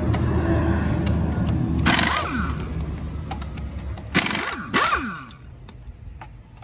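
Impact wrench on a front wheel's lug nuts: running steadily for about two seconds, then short trigger bursts about two, four and five seconds in, each winding down in pitch after release.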